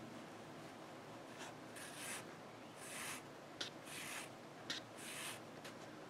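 Yarn drawn through a kitchen towel with a yarn needle while blanket-stitching its edge: about five short, faint hissing rubs of yarn on cloth, with two sharp little ticks in the middle.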